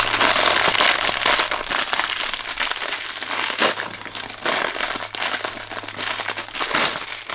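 A foil blind-bag wrapper and the clear plastic bag inside it being crinkled and crumpled by hand: a dense, continuous crackling that thins out near the end.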